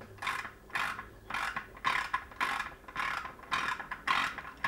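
A steady run of short mechanical rasps, about two a second, like a ratchet or tool being worked in repeated strokes.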